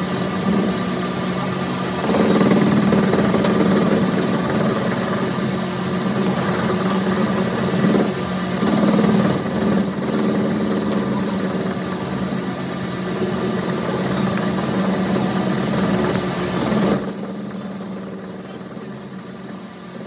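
An engine running steadily with a constant hum. About three-quarters of the way through, the sound turns quieter and duller.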